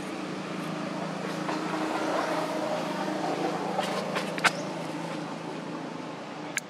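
A steady low engine hum, like a motor vehicle running, with a sharp click about four and a half seconds in and another near the end.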